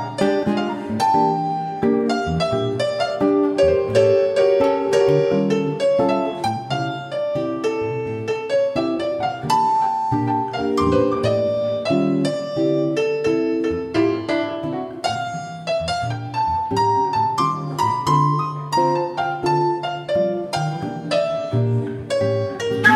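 Yamaha electronic keyboard played solo with a piano sound: quick, dense runs of notes over a steady bass line.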